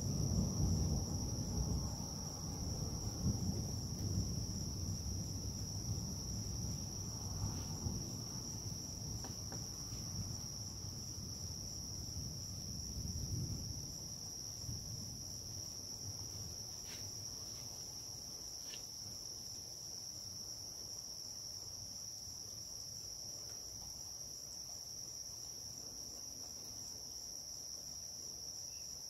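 Low rumble of distant thunder fading away over the first half, under a steady high-pitched chorus of night insects trilling.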